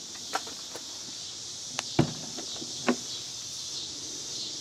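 Clicks and knocks from a travel trailer's entry door latch and door being worked, with a heavier thump about two seconds in, as someone steps up into the trailer.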